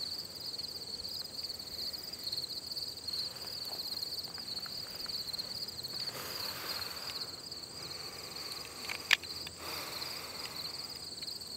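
A steady, high-pitched insect chorus chirring in a fast pulsing rhythm. A single sharp click about nine seconds in is the loudest sound.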